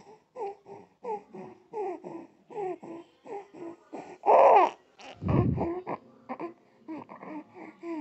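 A baby's rapid, noisy breathing, with a harsh pitched sound on each breath about two to three times a second: an abnormal breath sound that signals a partly blocked airway. About four seconds in comes one louder burst, followed by a deep low sound.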